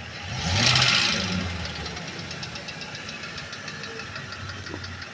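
Ford E350's 5.4-litre V8 given a short blip of throttle about half a second in, then settling back to a steady idle, with a fast, even ticking running through it. This is the light-throttle engine noise that the owner cannot trace and that stayed the same after the transmission was taken out.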